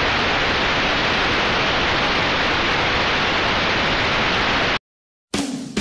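Loud, steady TV-static hiss as a sound effect, which cuts off abruptly about five seconds in. After a short silence, music starts just before the end.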